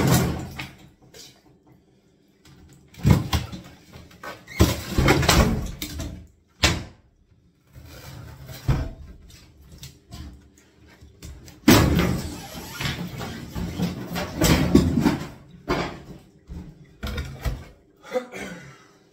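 Wooden kitchen units being pulled and pried out: irregular bangs, knocks and scraping in loud clusters with short pauses between.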